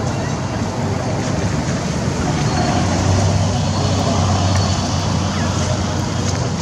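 Steady road traffic noise, with a vehicle engine humming louder through the middle.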